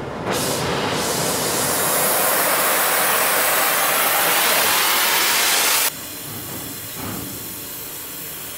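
Oxy-acetylene torch hissing loudly, its oxygen turned up to burn through a steel boiler smoke tube. The hiss jumps up just after the start and drops suddenly about six seconds in to a quieter hiss.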